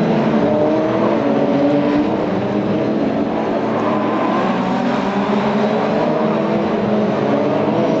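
Several open-wheel racing cars' engines running at high revs, their overlapping notes sliding up and down in pitch.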